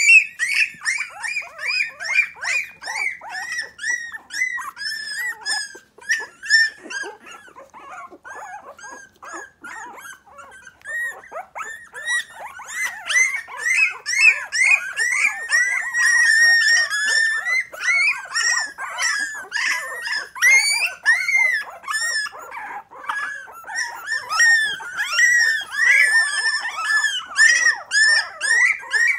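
Three-week-old miniature pinscher puppies crying with high-pitched whines and yips, many short calls a second overlapping one another. The cries thin out about a fifth of the way in, then grow busier and louder for the rest.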